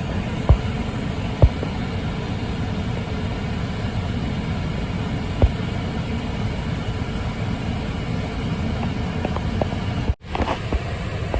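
Steady low rumble and hiss of an airliner on approach heard from the ground, with a few sharp thumps near the start and about five seconds in.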